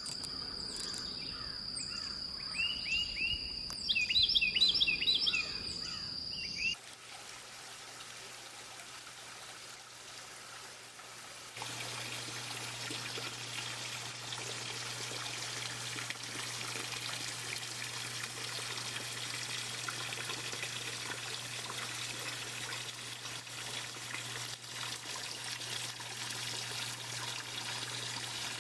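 Birds calling in short, repeated chirps over a steady high whine, which cuts off suddenly about seven seconds in. Water trickling and pouring follows for the rest, with a steady low hum beneath it.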